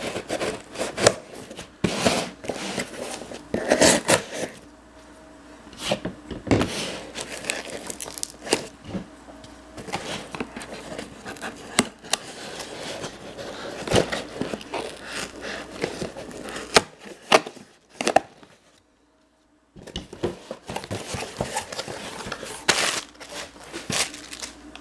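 Folding knife slicing and scraping through packing tape on a cardboard shipping box, with the tape and cardboard tearing and crinkling and many sharp clicks as the flaps are pulled open and the contents handled. It briefly drops to near silence about three-quarters of the way through.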